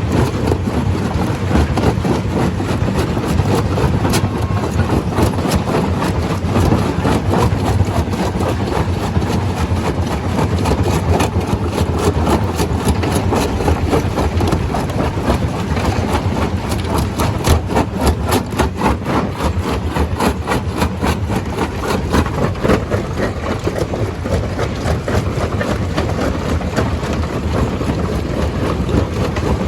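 Stone crusher running: a steady, loud machine drone with dense, rapid clattering and knocking of rock, busiest around the middle.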